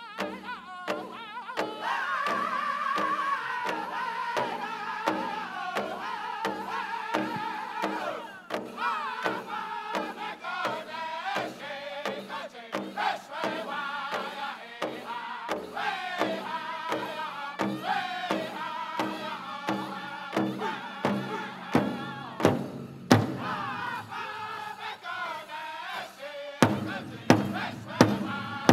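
Powwow drum group singing a chicken dance song in high voices over a big drum beaten in steady time. Near the end the drumbeats get louder and stand out more against the singing.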